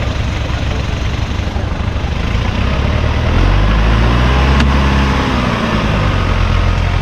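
Off-road 4x4's engine running at low revs as it crawls over rough ground, its note rising about three seconds in and falling back a couple of seconds later.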